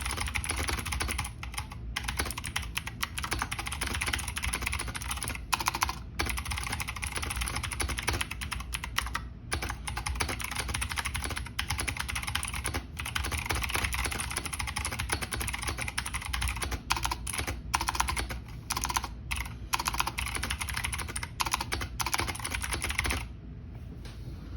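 Fast, continuous typing on a Razer BlackWidow V3 Mini mechanical keyboard with clicky Razer Green switches, a dense stream of key clicks with brief pauses. The typing stops near the end.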